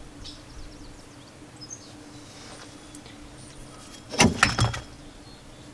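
Hand tools working on a car hub bolt: a quick clatter of several sharp clicks about four seconds in, over a faint steady hum. Faint bird chirps come through now and then.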